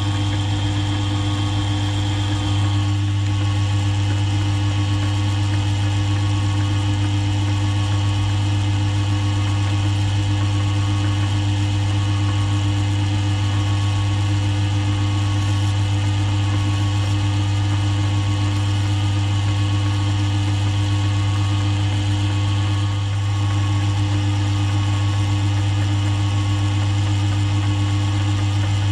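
Mill drill's motor running with a steady deep hum while its spindle drills into an aluminium block. The sound shifts slightly about two and a half seconds in and again near the end.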